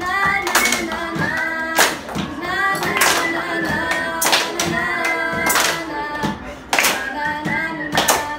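A group of young teenagers singing a song together, with a sharp hand-struck beat about every second and a quarter.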